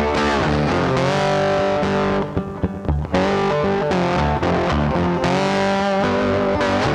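Instrumental background music led by a distorted electric guitar, with sliding notes and a brief drop in loudness a little after two seconds in.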